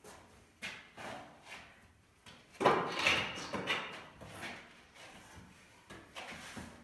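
Wooden frame knocking and scraping against a bare concrete wall: a run of knocks, the loudest about two and a half seconds in, with a short echo off the concrete.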